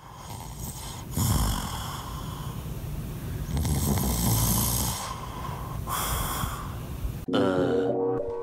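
A sleeping person snoring heavily, three loud snores about two and a half seconds apart, each a long rasping breath. About seven seconds in the snoring cuts off and a different pitched sound takes over.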